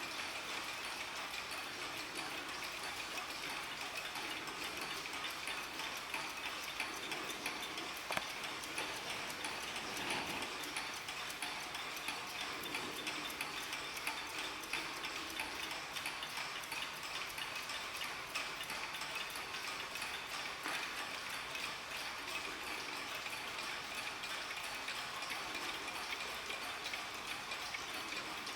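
Several mechanical mantel clocks ticking at once, out of step with one another, so the ticks overlap into a dense, uneven patter.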